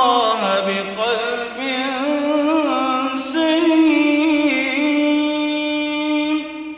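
A man reciting the Quran in slow, melodic tajweed chant, ornamenting a drawn-out phrase with sliding, wavering pitch. He holds a long note through the second half, and it trails off near the end.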